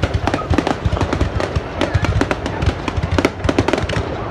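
New Year fireworks going off in a dense, continuous barrage of rapid bangs and crackles, several a second.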